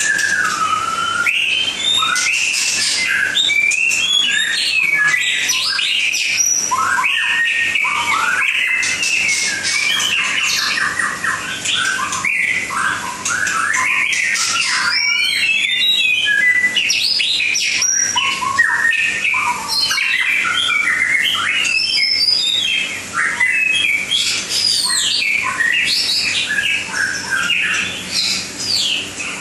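White-rumped shama (murai batu) singing without pause: a rapid, varied string of whistled phrases that glide up and down in pitch, with short clicking notes mixed in.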